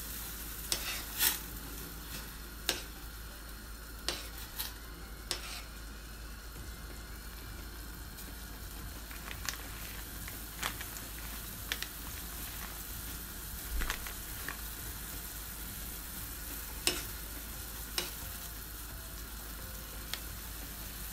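Saucepan of sinigang broth simmering on a gas burner: a steady hiss with scattered sharp clicks, several of them in the first few seconds as a metal spoon stirs against the stainless pan.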